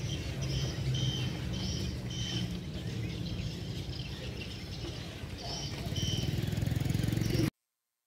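Birds chirping in short, repeated high calls over a steady low rumble, until all sound cuts off suddenly near the end.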